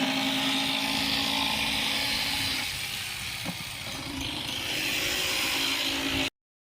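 Electric jigsaw sawing through plywood, its motor running steadily. The sound drops off for about a second and a half midway, then picks back up, and cuts off abruptly near the end.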